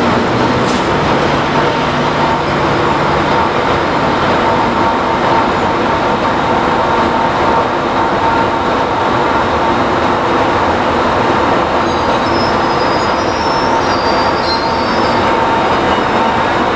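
Vintage railway vehicle running on track: a steady, loud rolling noise with a thin steady whine over it.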